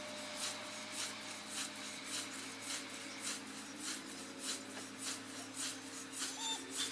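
Scythe blade swishing through long grass in regular strokes, about two a second, sped up, over a steady low hum. Near the end come short high calls that are sped-up cattle moos, sounding like geese.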